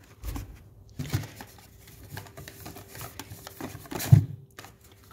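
Deodorant containers being handled and set down on a surface: a few separate knocks with light rustling between them, the loudest knock about four seconds in.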